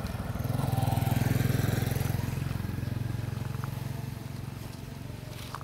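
A motor vehicle passing on the road: its engine grows louder over the first second and a half, then fades away.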